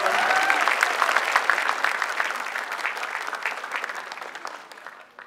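Studio audience applauding, the clapping dying away over the last couple of seconds.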